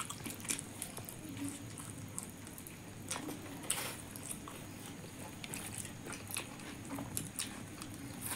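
Close-miked eating sounds of people eating rice and fried fish by hand: chewing and lip smacks, with scattered soft clicks and crunches at irregular moments.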